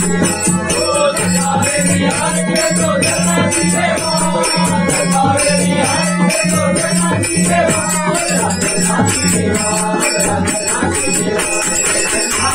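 A group of men singing a Marathi devotional aarti together, with hand-clapping and jingling percussion keeping a steady beat.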